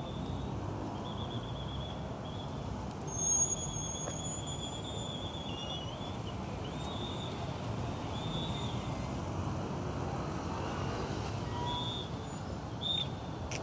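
City street traffic: a steady rumble of motorcycle and car engines and tyres, with short high chirps or beeps scattered through it and a brief shrill tone about three seconds in.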